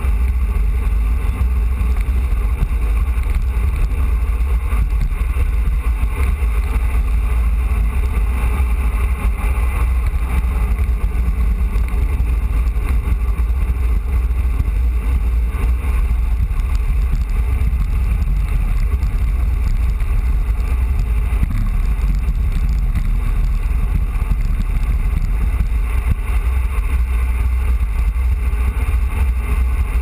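Steady wind rumble and buffeting on the microphone of a GoPro mounted on a road bike's handlebars while descending, a loud deep rumble with a hiss above it.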